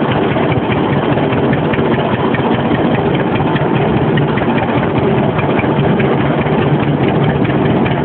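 John Deere Model D tractor's two-cylinder engine running steadily at part throttle, a continuous stream of even firing pulses.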